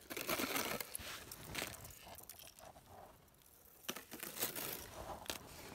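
Irregular crunching of snow and ice: a rustle in the first second, then a few sharp crunches spread through the rest.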